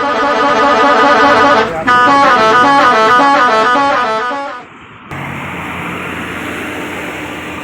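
Basuri telolet horn on a bus playing a winding, snaking melody in two loud phrases, the second starting about two seconds in, stopping suddenly about five seconds in. After that comes a steady rumble of the vehicle running.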